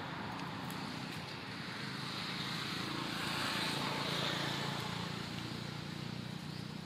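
Steady outdoor background noise: a low rumble with a hiss over it, swelling a little about three to four seconds in.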